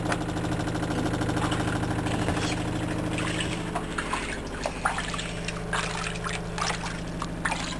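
Bathwater splashing and trickling in a washbasin as a kitten is washed by hand, with water scooped and dribbled over it, starting about halfway through. A steady low hum runs underneath throughout.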